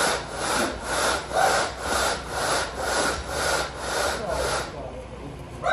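Screed board being see-sawed back and forth across stiff, freshly poured concrete: even rasping strokes about two a second that stop near the end.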